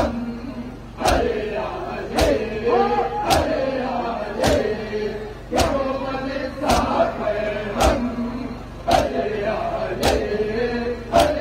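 A crowd of men doing matam, striking their bare chests with open hands in unison: a sharp slap roughly once a second, about ten in all, steady and even. Between the strikes, many male voices chant a noha together.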